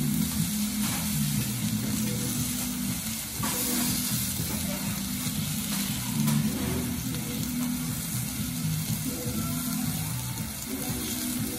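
Ozaki wagyu beef sirloin sizzling on a steel teppanyaki griddle, with a few light clicks of the knife and fork against the plate, over soft background music.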